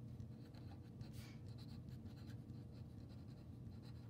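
Faint scratching of a felt-tip marker writing on paper in short, irregular strokes.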